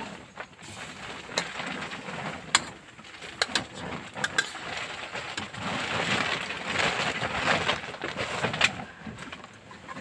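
A metal ladle clinks and scrapes against an aluminium pot as boiled fish soup is dished into a plastic bowl, sharp knocks scattered throughout. Under it runs a steady hiss that swells about six seconds in.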